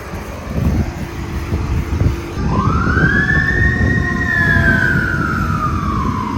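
A siren sounding one wail: it rises quickly about two and a half seconds in, holds near its peak, then falls slowly. Low rumbling noise runs underneath throughout.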